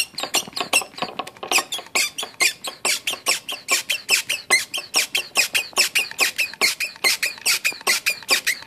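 Hand-operated brake bleeder vacuum pump being worked in quick, even strokes, giving short high-pitched rising squeaks about four to five times a second as it draws a vacuum.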